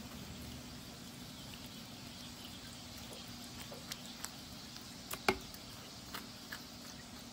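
Metal spoon scraping avocado flesh off the skin, with a few scattered soft clicks and one sharper tap a little after five seconds in, over a low steady hum.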